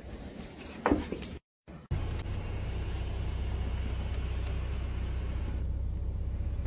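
Steady low rumble of a car idling, heard from inside its cabin. It starts after a brief silence about two seconds in, with a short faint sound about a second in before the silence.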